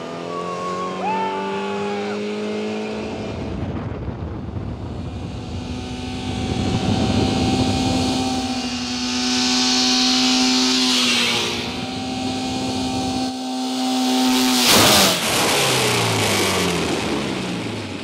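A car engine running hard as the car accelerates and holds speed, its note climbing and then steady, with a rising hiss of tyres and air about ten seconds in. About fifteen seconds in comes a sudden loud crash as the car slams to a stop, and the engine note falls away after it.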